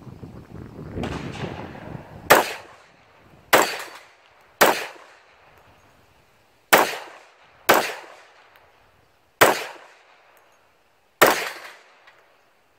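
A .45 pistol fired seven single shots at an unhurried, uneven pace, each a sharp crack with a short echoing tail. A rushing noise swells over the first two seconds before the first shot.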